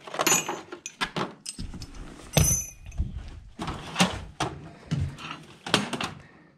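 A string of irregular knocks, thuds and clicks from things being handled, about a dozen over the few seconds. Two of them, near the start and a little past two seconds in, carry a short, high metallic ring.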